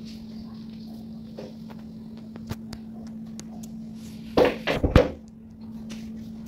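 A steady low hum with scattered light clicks, then a cluster of loud thumps and knocks about four and a half seconds in.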